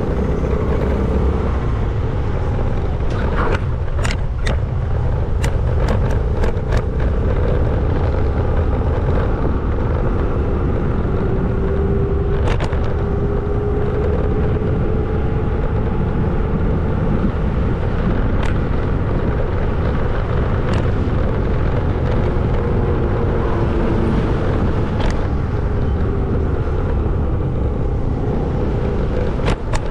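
Steady rumble of riding a scooter: wind and road noise with its small engine running at an even speed, and a few brief clicks.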